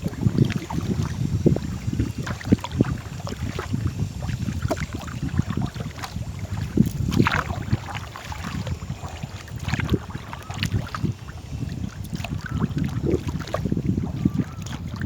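Wind buffeting the microphone over water, with irregular splashes and knocks from a small paddled boat.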